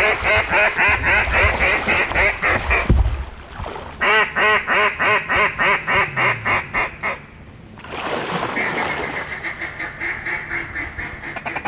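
Duck quacking in quick, even runs of about four quacks a second, three runs with short pauses between them.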